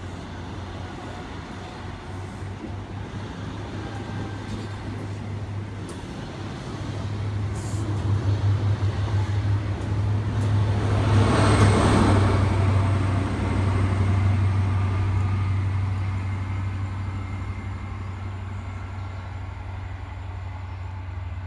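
Class 43 HST diesel train running past, its Mk3 coaches rolling by with a steady low engine drone. The sound swells to its loudest about halfway through, as the rear power car goes by, then fades as the train moves away.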